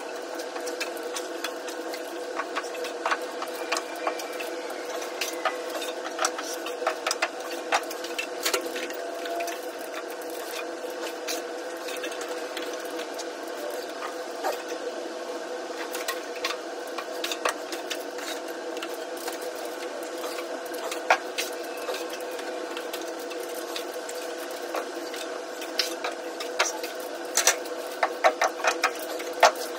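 A metal drywall knife and trowel scraping and clicking as joint compound is loaded from a mud pan and skimmed onto a ceiling, with the clicks coming thicker near the end, over a steady mechanical hum from a running machine.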